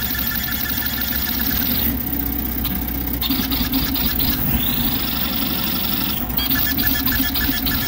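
Vz235 CoreXY 3D printer running very fast moves: its stepper motors whine and buzz, with a high whine that comes and goes in stretches of one to two seconds. Under it is the steady rush and hum of the cooling fans.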